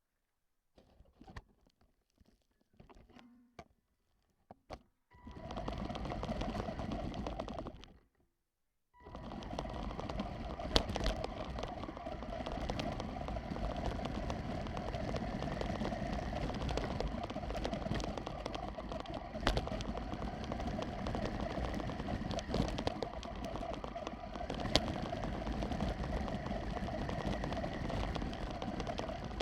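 Small electric motor and gear train of a radio-controlled truck running with a steady, rattly buzz. It starts briefly about five seconds in, cuts out for a moment, then runs on without a break from about nine seconds in, with a few sharp clicks.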